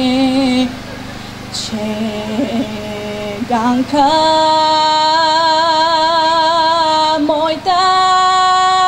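A young woman singing a Bulgarian folk song solo, one voice holding long notes with a wavering vibrato. About a second in she drops softer and lower for a few seconds, then returns to long high held notes, with a short break near the end.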